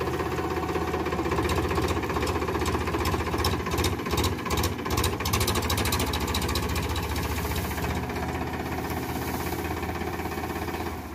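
Powertrac Euro 50 tractor's diesel engine running with a fast, even beat as the tractor pulls a thresher slowly forward. The engine is a little louder in the middle and eases slightly toward the end.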